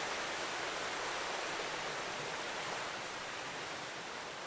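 Ocean surf washing in a steady, even rush of water, easing off slightly after about three seconds.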